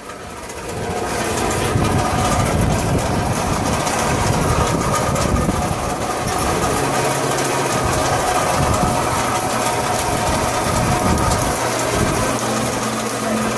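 Motorized sugarcane press running while a cane stalk is fed into it and crushed between its rollers: a steady mechanical noise with a low hum, building up over the first second or so.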